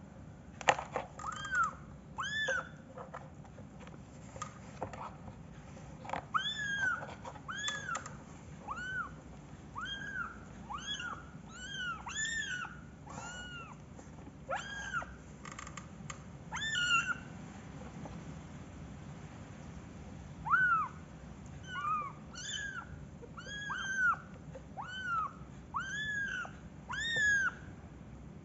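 Young kittens mewing repeatedly: short high-pitched mews, each rising then falling in pitch, coming about one or two a second with a couple of brief pauses. A few sharp knocks sound about a second in.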